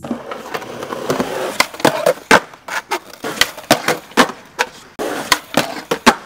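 Skateboard wheels rolling on concrete, with many sharp clacks of the board, several a second.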